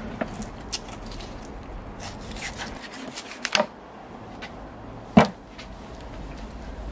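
Scattered knocks and clicks of kitchen items being handled, with the loudest a single sharp knock about five seconds in.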